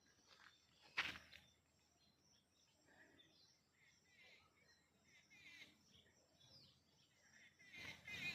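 Faint, scattered bird chirps over near silence, with one sharp click about a second in.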